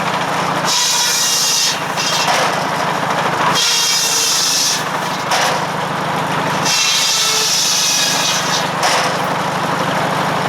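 Firewood circular saw blade cutting through logs again and again, each cut a loud high-pitched rasp lasting a second or two with short breaks between cuts. Under it, the 1945 McCormick W4 tractor's four-cylinder engine runs steadily, driving the saw.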